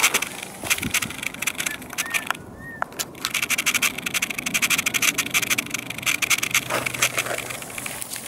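Dry grass and twigs crackling and rustling underfoot and against the body as someone moves through dry hillside vegetation, with a short lull about two and a half seconds in. Two short high whistles sound around that lull.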